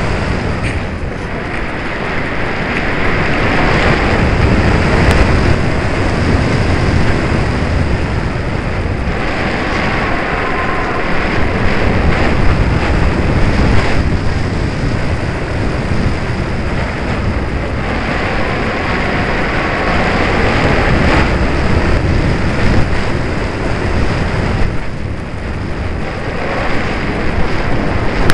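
Loud rushing and buffeting of airflow over the microphone of a camera mounted on a model aircraft in flight, swelling and easing every few seconds.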